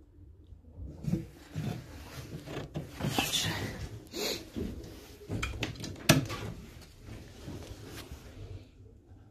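Handling noise in a pigeon loft: irregular rubbing, knocks and clicks on wooden cage fittings, with one sharp click about six seconds in.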